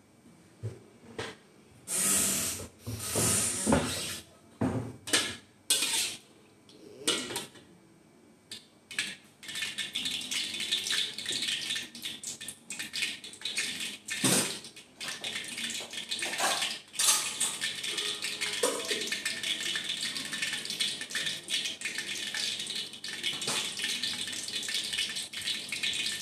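A few sharp metal clanks in the first nine seconds, then a steady hiss with fine crackling as cooking oil heats in a wide steel wok on a gas stove.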